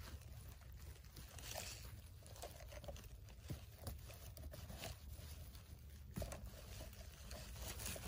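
Faint rustling and crackling of moss and twigs as fingers pick funnel chanterelles, pulling their stems free, with scattered small snaps.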